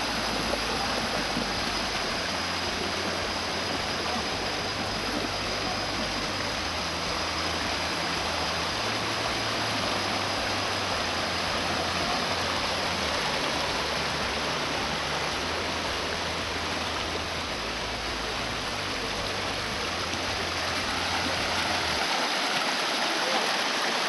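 Rocky mountain stream running and splashing over boulders in small cascades: a steady, even rush of water. A low rumble sits underneath and drops away near the end.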